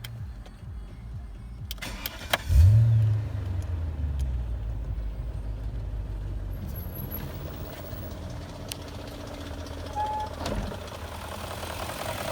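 BMW M62B44TU 4.4-litre V8 engine started: it catches about two and a half seconds in with a brief rise in pitch, then settles into a steady idle.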